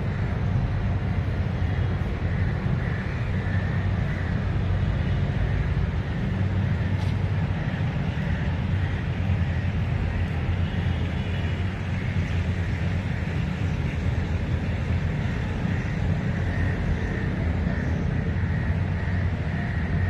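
Steady low rumble of outdoor background noise, even and unbroken throughout.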